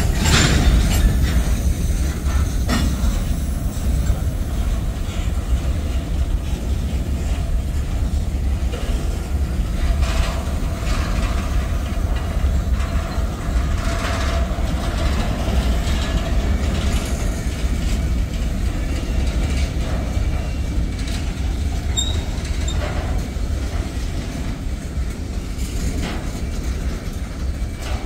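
Freight train cars, covered hoppers and tank cars, rolling past at close range: a steady low rumble of steel wheels on rail, with scattered clicks and clanks as wheels cross rail joints.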